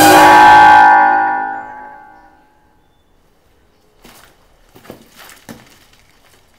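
A bell struck once, loud, ringing with many overtones and fading away over about two and a half seconds. A few faint knocks follow later.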